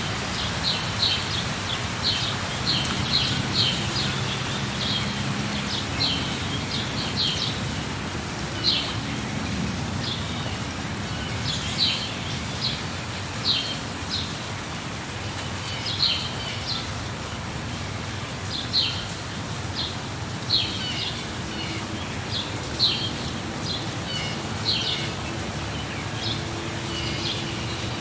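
A bird chirping, short sharp high calls repeated irregularly about once a second, over a steady hiss of falling rain.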